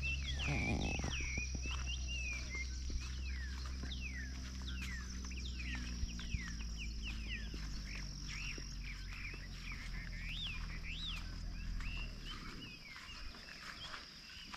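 Many birds chirping and calling in quick swooping notes, over a low steady hum that fades away near the end.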